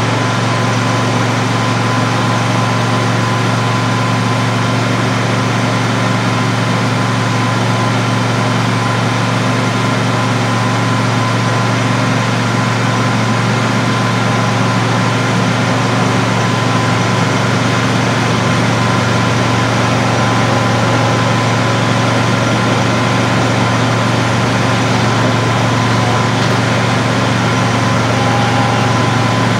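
Engine idling steadily: a constant low drone with a thin, steady whine above it, unchanging throughout.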